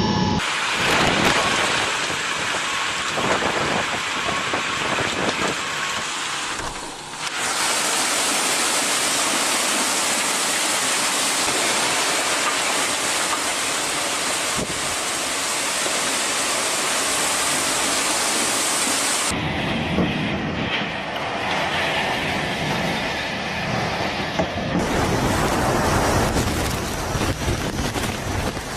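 Hurricane wind and heavy rain making a loud, steady rushing noise, its character changing abruptly three times, about 7, 19 and 25 seconds in.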